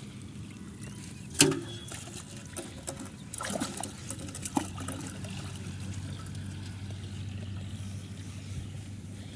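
Pond water splashing and trickling as hands work through shallow muddy water, with one sharp knock about a second and a half in and a few smaller knocks a couple of seconds later, over a steady low hum.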